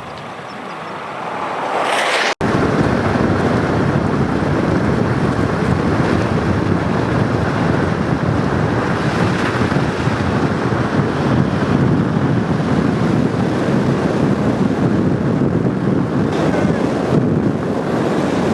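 Strong wind buffeting the microphone, a steady loud rushing noise. A quieter, rising rush is cut off sharply about two seconds in, and then the full loud rush starts at once.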